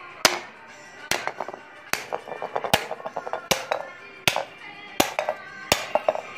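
A hammer repeatedly striking a terracotta gullak (clay money bank), breaking it open. About eight sharp blows come at a steady pace of a little under one a second, with background music underneath.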